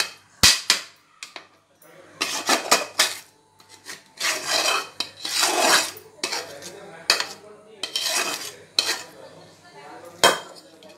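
A metal spoon scraping a kadai and clinking against a steel plate as cooked coconut burfi mixture is emptied out of the pan. There are repeated sharp clinks and several longer scrapes, the longest about four to six seconds in and again around eight seconds in.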